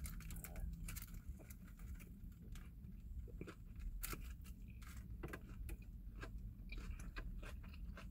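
Chewing and biting into a paper-wrapped falafel pita, with scattered small clicks and crinkles from the paper wrap being handled.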